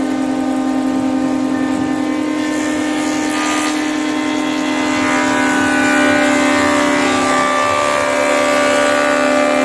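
Jointer planer running with a steady high hum while its cutterhead shaves a wooden plank, throwing off chips. The cutting noise grows louder about five seconds in.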